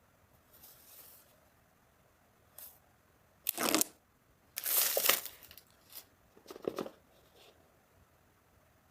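Phone packaging being torn open and crinkled: a series of short rips and rustles, the loudest about three and a half and five seconds in.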